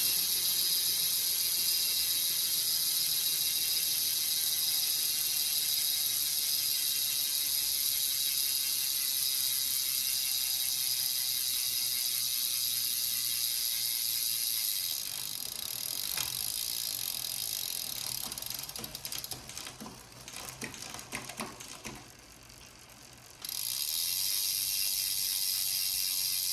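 Road bike's rear freehub buzzing steadily as the wheel spins freely. The buzz stops about fifteen seconds in, giving way to a run of clicks and knocks, then starts again about twenty-three seconds in.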